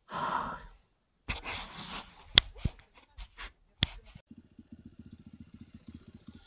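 A short rush of noise and some clatter with a few sharp clicks, then from about four seconds in an enduro motorcycle engine idles with a quick, even beat.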